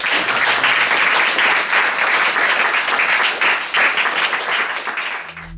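Audience applauding: many people clapping at once, a dense, loud patter of claps that breaks off suddenly near the end.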